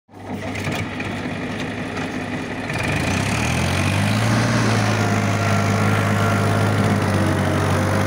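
Farm tractor's diesel engine running at idle, then revving up about three seconds in and holding a higher, steady speed as the tractor pulls away.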